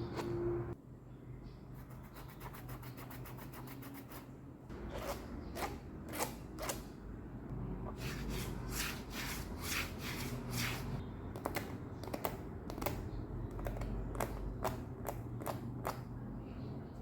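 Li-Ning Son of Flash 2 basketball shoe making a run of sharp cracking clicks, the unwanted cracking noise the shoe has developed. A fast, even patter of fine clicks comes about two seconds in, then irregular single cracks follow, thickest in the second half.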